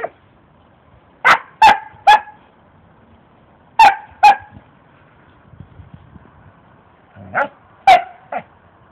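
A dog barking in short, sharp barks: three in quick succession, then two, then three more.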